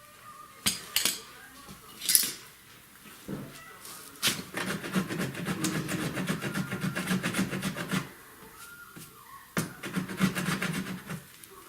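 Rapid rubbing strokes against a car body panel, typical of hand sanding or filing during dent and paint repair. A few sharp knocks come first, then a long run of fast strokes of about four seconds and a shorter run near the end.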